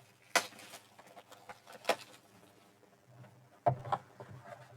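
Handling of a trading-card box and its packaging: three short, sharp rustles or taps of cardboard and wrapper, with faint handling noise between them.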